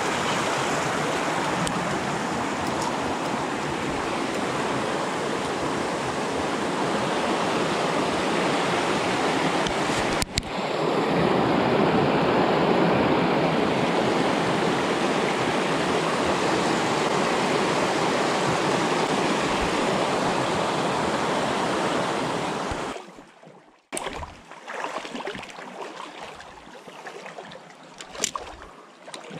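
Fast mountain creek rushing and tumbling over rocks, a loud steady hiss of water close by that gets a little louder about ten seconds in. About 23 seconds in the rush drops away abruptly to a much quieter, patchier water sound with a couple of sharp clicks near the end.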